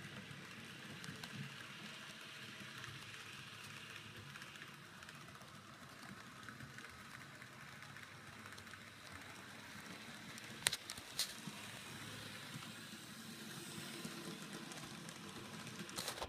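Model train, a GP38-2 diesel locomotive pulling freight cars on table-top track, running with a faint steady noise from its motor and wheels on the rails. Two sharp clicks come about two thirds of the way through.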